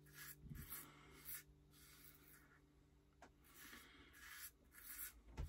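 Faint, short rasping scrapes of a Rockwell 6S safety razor drawn over a lathered scalp, about one or two strokes a second, over a low steady hum, with a soft knock near the end.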